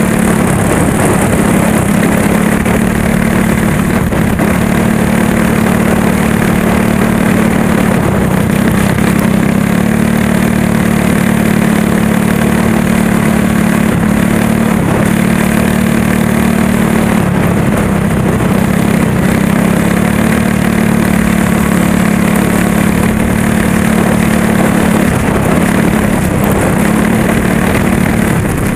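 Go-kart engine running hard at a near-constant high speed, loud and close on the kart's own onboard camera, its pitch holding steady with only slight dips.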